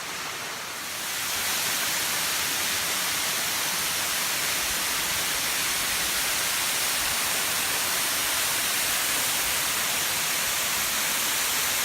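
Waterfall at flood-stage flow: a steady, even rush of falling water that swells over about the first second and a half, then holds level.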